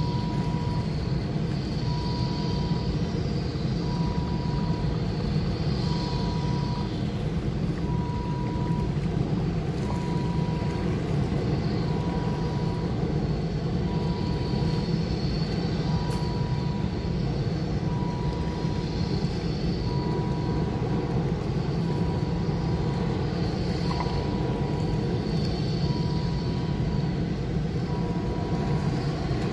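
A steady low rumble with a short high beep repeating about every two seconds throughout.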